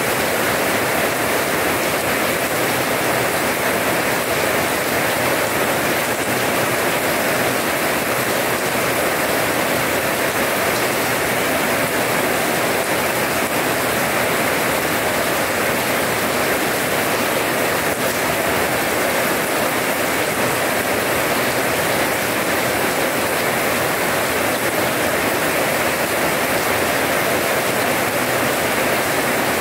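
Steady rain falling on wet tiled paving, an even hiss of drops splashing on the wet ground.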